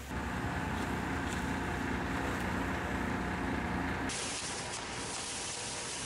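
Concrete pump truck running as concrete discharges from the pump hose: a steady mechanical drone with hiss. About four seconds in it cuts abruptly to a more even, hissy outdoor noise.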